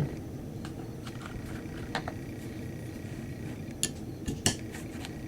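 A dull knock, then a few light metallic clicks and clinks of a small hex key being fitted to a pistol rear sight's set screw, most of them near the end, over a steady low hum.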